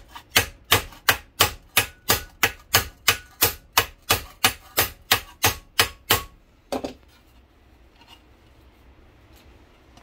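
Body hammer planishing a MIG weld bead on a steel plate held over the vise jaw: steady sharp metallic blows, about three a second, hammering the weld bump flat. The blows stop about six seconds in, followed by a couple of lighter knocks.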